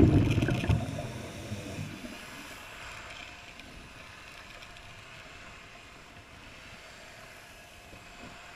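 Underwater recording: a scuba diver's exhaled bubbles from the regulator bubble and gurgle loudly for about the first second, then fade to a quiet, steady underwater hiss.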